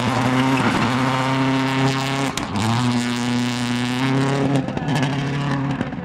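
Subaru Impreza WRC rally car's turbocharged flat-four engine held at high revs as the car drifts, the pitch steady in three long stretches broken by short dips about a second, two and a half and nearly five seconds in. A sharp crack sounds near the middle.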